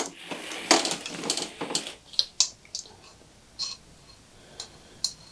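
Bicycle chain rattling and clinking as it is fed by hand over a mid-drive motor's chainring. The rattling is busiest in the first two seconds, then gives way to a few separate ringing clinks.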